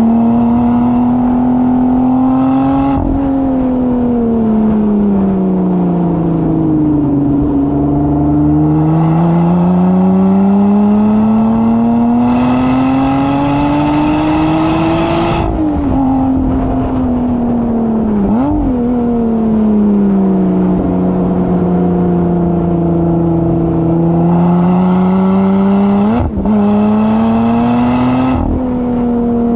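Engine of a track-day vehicle heard onboard, working up and down through the revs as it laps the circuit. The note falls over the first few seconds, then climbs steadily under acceleration until it drops away sharply about halfway through. There are brief quick dips a little later and again near the end, and a rush of higher-pitched noise comes in at the top of each climb.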